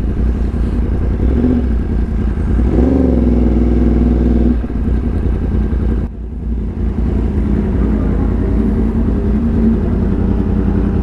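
Yamaha R1M's crossplane inline-four engine running. It revs up a little over two seconds in, holds for about two seconds and drops back, then runs steadily until it stops near the end.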